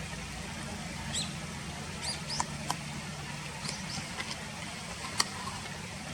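Small birds giving scattered short, high chirps over a steady low background hum, with one sharp click about five seconds in.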